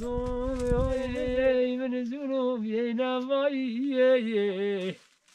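A single voice singing long, wavering, drawn-out notes in a chant-like melody, breaking off abruptly about five seconds in.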